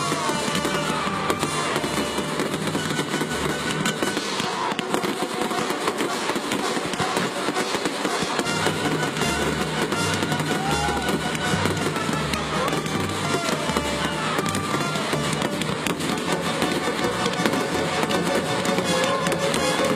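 A fireworks display going off continuously: dense crackling and popping from crackling stars and fountains. Music with a pulsing bass plays under it.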